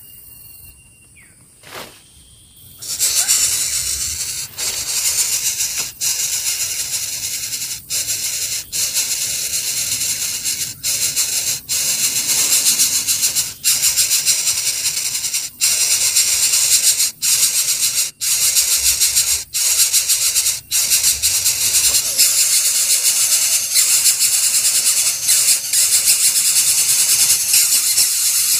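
Coucal nestlings hissing: a loud, harsh hiss kept up in repeated strokes with brief breaks every second or two, starting about three seconds in.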